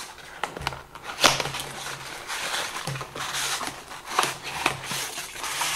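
Small cardboard box being opened and its plastic-wrapped contents handled: rustling and crinkling, broken by sharp clicks and taps of the cardboard.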